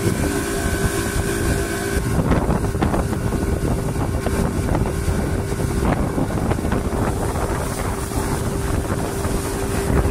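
Yamaha V6 150 hp outboard engine running steadily at speed, with rushing wake water and wind buffeting the microphone. About two seconds in, a higher tone in the engine sound drops away.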